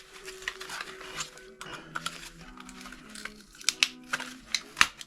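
Sharp clicks and metallic knocks of a power adapter being pried and knocked apart, several louder ones near the end, over background music.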